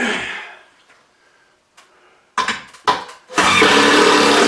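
Power drill driving a screw into a speaker mounting bracket: a couple of knocks, then about a second of loud, steady motor whine as the screw is run in near the end.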